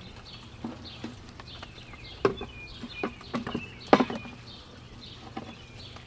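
Sharp wooden knocks and clunks as a wooden birdhouse is hooked onto its mount on a wooden post, the two loudest about two and four seconds in. Small birds chirp over and over in the background.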